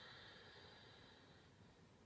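Near silence with a faint, slow breath through the nose that fades out about a second and a half in.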